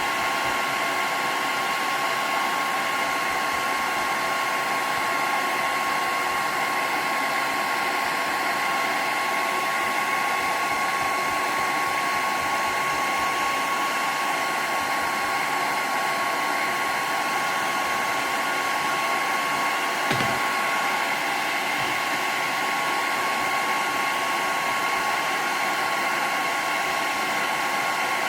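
Handheld hairdryer blowing steadily, a constant rushing of air with a steady whine, warming old glue on a wooden floor to soften it. A brief knock about two-thirds of the way through.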